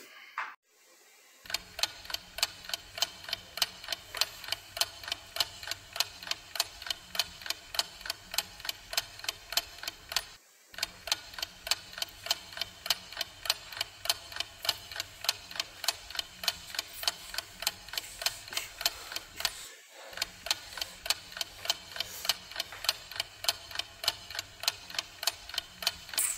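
A clock ticking steadily, about two ticks a second, starting a second or so in and cutting out briefly twice along the way.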